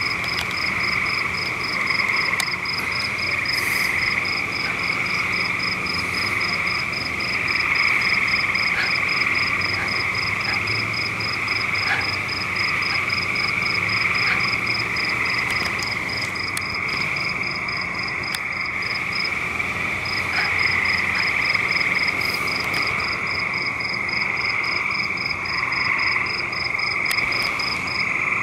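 Night chorus of calling animals outdoors: a steady high trilling drone with a sharper high chirp repeating about three to four times a second, which drops out for about a second around two-thirds of the way through.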